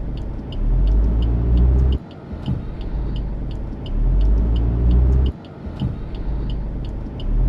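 Inside the cabin of a Suzuki Ignis Hybrid, its 1.2-litre four-cylinder engine restarts from idling-stop through the ISG starter-generator as the brake is released, then pulls away smoothly with little noise or vibration. The restart is heard in repeated takes, each cut off suddenly. The turn signal ticks steadily throughout.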